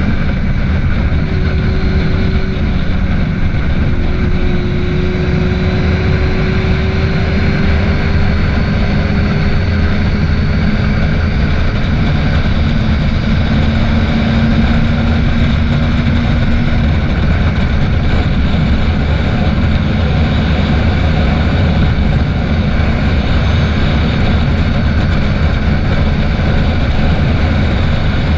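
A Yamaha FZ6 motorcycle's inline-four engine running at highway speed, under heavy wind rush on the microphone. The engine note rises slowly in pitch through the first half as the bike gently speeds up.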